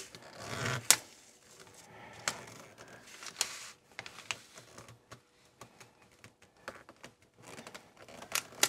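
Paper backing rustling and crackling as it is peeled from a self-adhesive sticker while fingers press and smooth the sticker onto an acrylic panel, with scattered sharp clicks.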